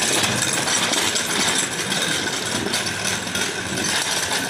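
Hazara Express passenger train running, a steady mechanical noise with rattling.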